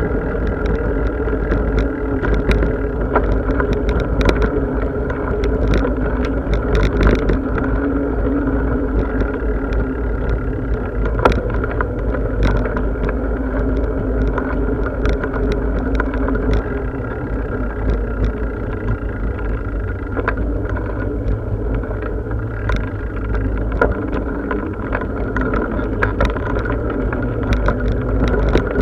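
A bicycle being ridden: a steady whir from the tyres and drivetrain with a low rumble, and frequent small rattles and clicks as it goes over the path.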